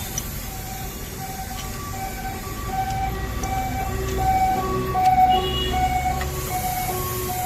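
A tune of short beeping notes, one note repeating about twice a second while others step up and down in pitch. Under the middle of it there is a low hum.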